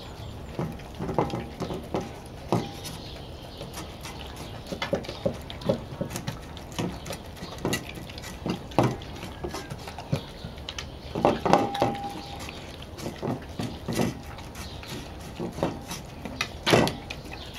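Two golden retrievers eating from their bowls: irregular clinks and knocks of muzzles against a stainless steel bowl and a second bowl, with a bowl ringing briefly about eleven seconds in.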